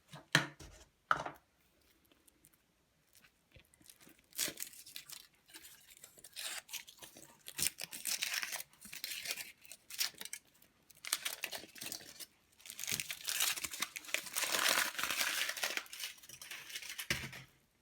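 Foil wrapper of a giant Kinder Surprise egg being torn open and crinkled by hand, in irregular rustling spells that build to the busiest crinkling near the end.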